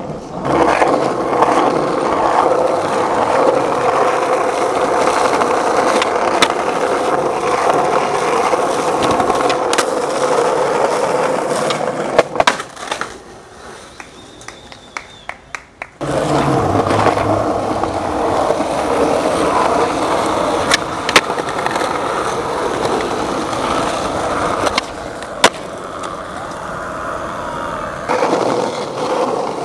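Skateboard wheels rolling over pavement with a steady rumble, broken now and then by sharp clacks of the board hitting the ground. About halfway through the rolling drops away for a few seconds, leaving scattered clicks, then picks up again.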